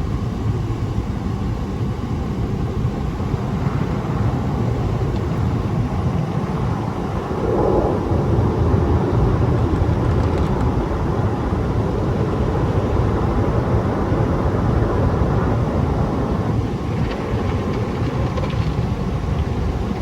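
Automatic tunnel car wash heard from inside the car: a steady rush of spray and wash machinery working over the bodywork, growing louder about seven and a half seconds in.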